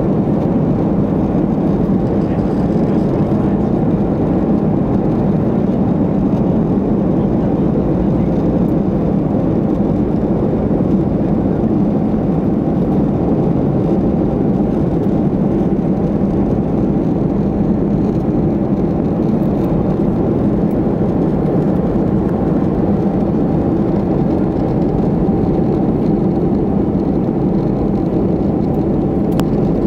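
Steady cabin noise of a Boeing 737-500 in flight, heard inside the cabin by a window over the wing: the constant drone of its CFM56-3 turbofan engines mixed with the rush of air along the fuselage.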